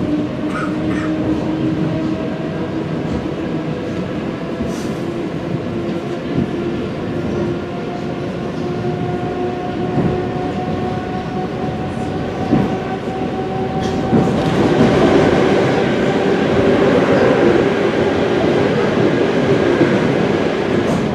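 ED4M electric multiple unit running on the line, with a steady motor whine that creeps slowly up in pitch, the rumble of the wheels and an occasional knock over rail joints. The running noise grows louder and rougher about two-thirds of the way through.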